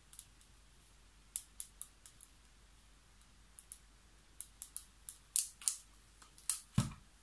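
Scattered light clicks and taps of plastic and wood as a paint bottle and stir stick are handled at a plastic pouring cup. The clicks grow more frequent in the second half, with one duller knock near the end.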